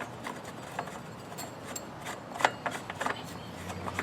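Short metal clicks and clinks from bike stunt pegs being handled and threaded onto the wheel axle by hand, a handful of knocks with the sharpest about two and a half seconds in.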